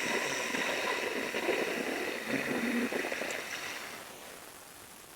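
Ujjayi breath: a slow inhalation drawn through a deliberately contracted throat, a soft, steady hissing rush that fades out about four seconds in.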